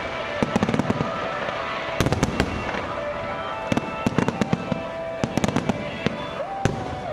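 Fireworks going off in a display: sharp bangs and crackles, some single and some in quick rapid-fire clusters, repeating throughout.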